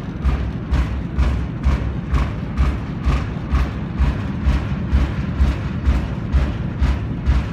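A sound installation inside a corrugated steel grain silo, playing a steady, even pulse of low thumps a little over two a second, each with a brighter click on top.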